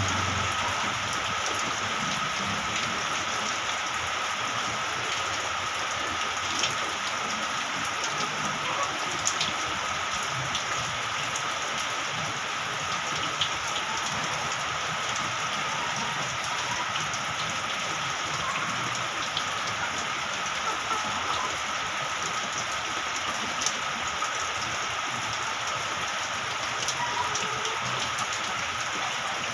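Steady rain falling, an even hiss, with single drops ticking sharply here and there.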